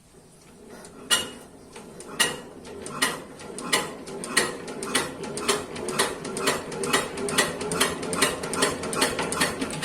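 Diesel engine being cranked by hand to start: a sharp knock about once a second at first, coming steadily faster, to about three a second, as the crank picks up speed.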